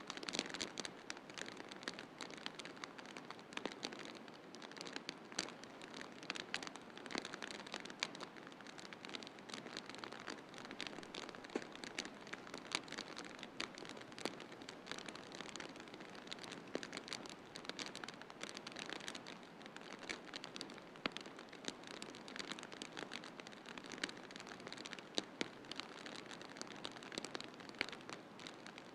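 Wood fire in a fireplace crackling: a steady soft hiss with frequent small, irregular pops and snaps.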